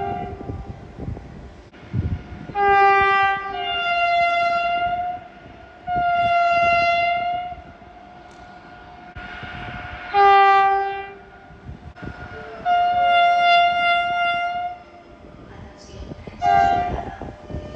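Spanish train horns sounding about five separate blasts, one of them stepping from a higher to a lower note, with a lower train rumble between the blasts.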